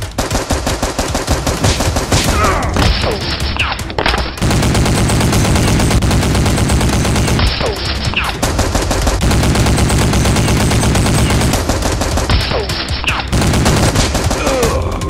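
Rapid automatic machine-gun fire sound effects: long, continuous bursts of shots, movie-style gunfire rather than the real sound of the toy blasters.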